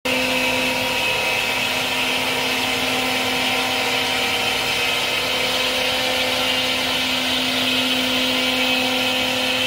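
CNC router spindle running steadily with a high whine and a loud rushing noise as the gantry carries it across an MDF spoilboard, surfacing (levelling) the board.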